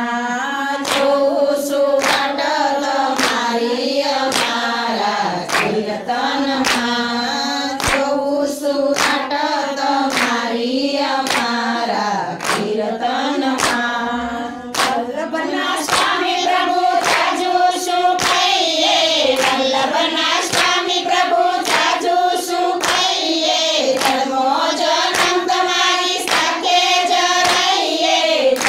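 A group of women singing a Gujarati devotional bhajan together, clapping their hands in a steady beat of about two claps a second.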